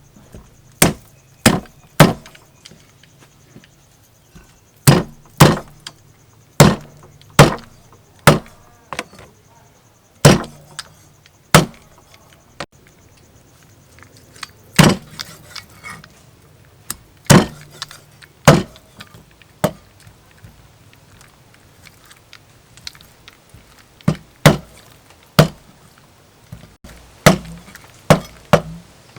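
Cleaver chopping a whole chicken on a chopping board: sharp, heavy blows, singly and in quick pairs, with pauses between.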